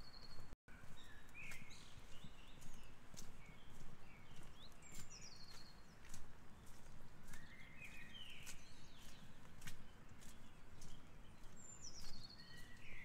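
Footsteps walking on hard pavement, with a small songbird singing nearby: a short high trill that drops in pitch, heard about five seconds in and again near the end, and scattered chirps between.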